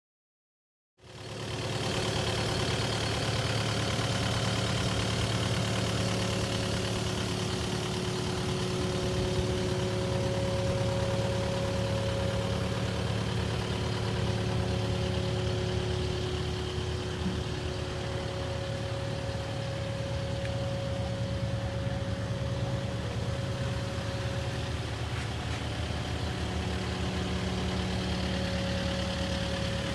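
Kubota KX080-4a excavator's diesel engine running steadily at idle. The sound starts about a second in.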